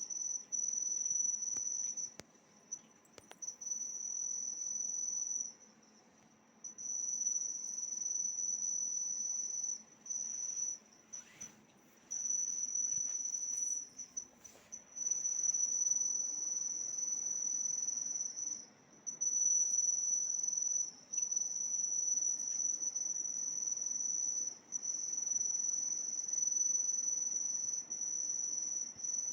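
A steady high-pitched trill that cuts out for a second or two and starts again at irregular intervals, which the uploader puts down to an indoor electrical voltage problem.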